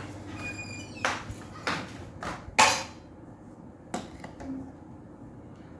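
Several short knocks and bumps, about five in all, the loudest about two and a half seconds in, with faint brief ringing tones near the start.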